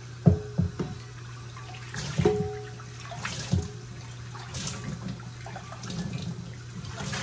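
Tap water running into a large cast iron skillet as it is rinsed in a sink, with several knocks of the heavy pan that ring briefly, the loudest about a third of a second in.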